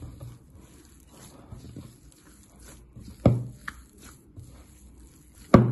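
Hands kneading crumbly flour-cookie dough in a glass bowl, a faint working noise broken by two loud thumps, one about three seconds in and one near the end.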